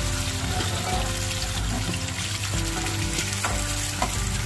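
Shallots and garlic sizzling in hot oil in a nonstick pan, sautéed to about half-cooked, while a metal spatula stirs them with a few light scrapes and taps against the pan.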